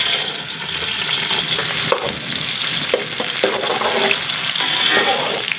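Sliced onions sizzling as they fry in hot ghee in an aluminium pot. They are stirred with a metal slotted spoon that clinks against the pot a few times.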